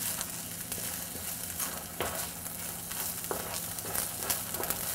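Soaked glutinous rice frying in oil with garlic in a non-stick pan, a steady sizzle, as a wooden spatula stirs it, with a few light clicks of the spatula against the pan.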